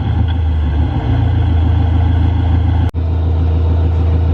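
A loud, steady, low motor-like drone, such as an engine or generator running, with a brief break about three seconds in.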